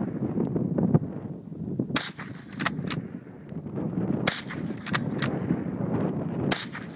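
Three .22 rifle shots, sharp cracks about two seconds apart. Each is followed by two quick clicks as the slide of the pump-action rifle is worked back and forth to chamber the next round.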